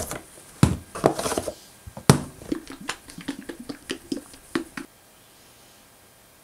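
Plastic silicone-rubber bottles being handled: knocks and clicks as they come out of a cardboard box and are set down and opened, with a sharp knock about two seconds in and a run of small clicks after it. The clicks stop about five seconds in, leaving only faint hiss while the thick silicone pours silently.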